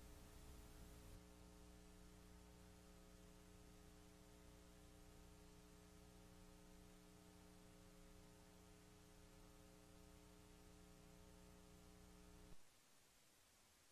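Near silence: a faint, steady electrical hum with light hiss, which cuts off with a small click near the end.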